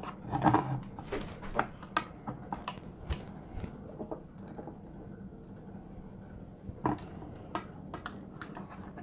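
Light, irregular clicks and taps of plastic and wiring being handled inside an opened drone remote controller. They are scattered through the first few seconds and come again near the end, with a quieter stretch between.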